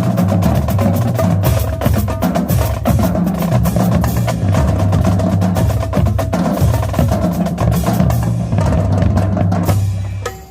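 Marching drumline playing a loud cadence: rapid snare strokes over tuned bass drums stepping between pitches. The playing drops off near the end.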